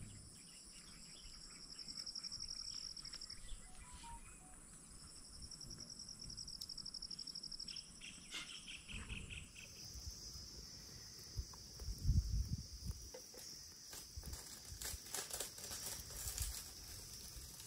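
Insects trilling in pulsing bursts of a few seconds each, then a steady high insect drone. In the second half there are scattered clicks and crackles, and a low thump about twelve seconds in.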